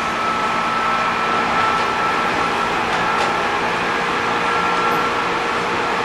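JR East 205 series 600-subseries electric train running at steady speed, heard from inside the car: a constant rumble of wheels on rail with a steady whine, and one faint click about three seconds in.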